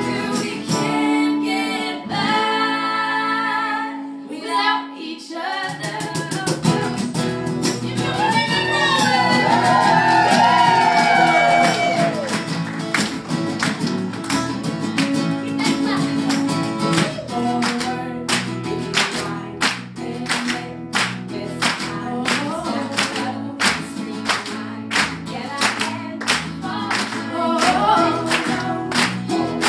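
Live acoustic pop-folk song: women singing with strummed acoustic guitars keeping a steady rhythm.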